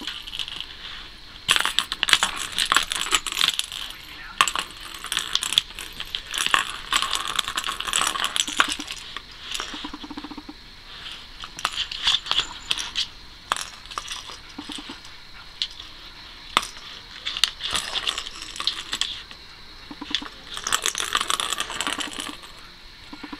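A ball rattling and clattering around inside a plastic circle-track cat toy as a cat bats at it, in fast spells of a second or two with short pauses between.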